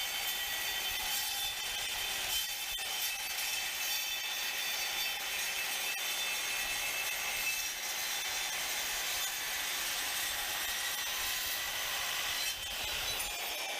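Evolution S185 7-1/4-inch metal-cutting circular saw, with its 40-tooth carbide blade, cutting through mild steel: a steady, high-pitched grinding screech laced with ringing tones. Near the end the pitch starts falling as the blade spins down.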